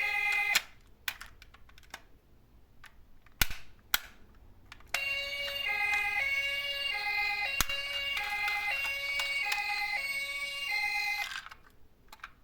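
Electronic hi-lo emergency siren of a toy emergency vehicle, two tones switching about every half second. It cuts off just after the start, then small sharp clacks and knocks of the miniature cars follow, the loudest two about three and a half and four seconds in. The siren starts again about five seconds in and stops about a second before the end, leaving light clicks.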